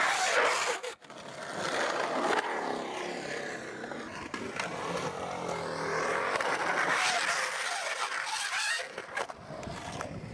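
Skateboard wheels rolling on a concrete ramp. The sound swells as the board passes close by near the start and again about two-thirds of the way in, then drops away near the end.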